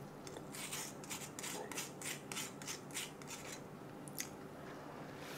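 Metal spoon scraping the flesh off a piece of watermelon rind: a quick run of short raspy scrapes, about three or four a second, then a single click about four seconds in.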